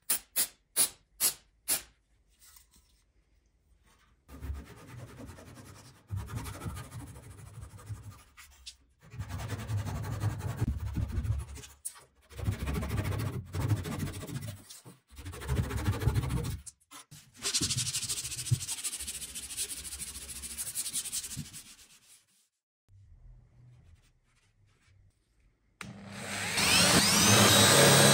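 An aerosol spray can gives five short bursts, then a flush-cut hand saw rasps back and forth in strokes of a second or two, cutting wooden dowels flush with the dresser's wooden top. Near the end a corded power drill runs, the loudest sound.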